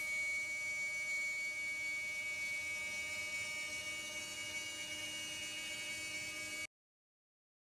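CNC router spindle running with a steady high whine over a hiss, at an even level. It cuts off suddenly after about six and a half seconds.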